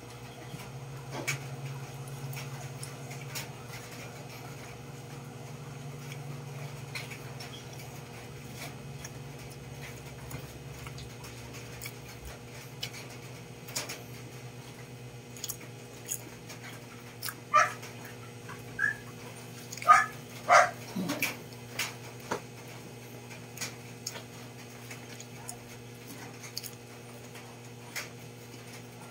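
Small clicks and smacks of someone eating with his hands over a steady low hum. About two thirds of the way in, a cluster of four or five short high-pitched cries stands out; the last one falls in pitch.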